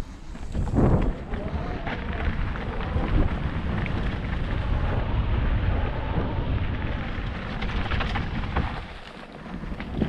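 Wind buffeting an action camera's microphone over the rumble of mountain bike tyres rolling fast on leaf-covered dirt, with the bike rattling over the bumps. The noise eases briefly near the end.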